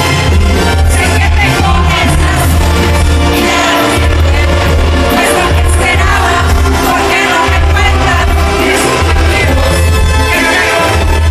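Loud live Mexican banda music: a brass band with a tuba playing the bass line under horns and drums, with singing.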